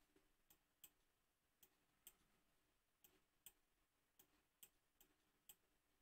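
Near silence with faint, irregular computer mouse clicks, about a dozen.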